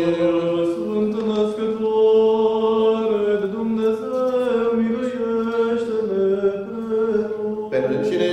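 A man's solo voice chanting a Romanian Orthodox liturgical intonation, drawn out in long held notes that step slowly up and down in pitch, with a short break near the end.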